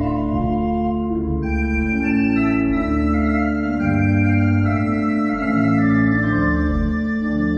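Church pipe organ playing slow, held chords that change about every second over sustained bass notes.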